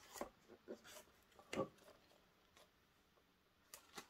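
Faint handling sounds of plastic packaging: a few soft clicks and rustles as a model railway coach is lifted out of its plastic box insert, the loudest about one and a half seconds in.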